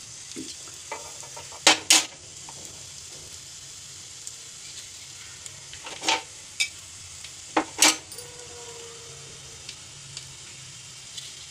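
Chopped onion sizzling in hot ghee in a small tadka pan, being browned for a tempering. There is a steady sizzle throughout, with a few sharp knocks of a metal spoon against the pan, in pairs about two seconds in and again near six and eight seconds.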